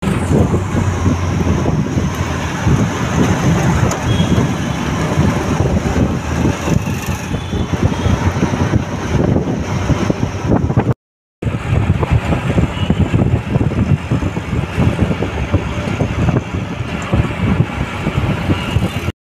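Steady engine and road noise of a moving vehicle, heard from on board while riding through city traffic. The sound drops out briefly about eleven seconds in, then carries on.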